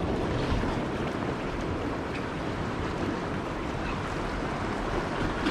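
Steady wind buffeting the microphone over the wash of sea waves against shore rocks.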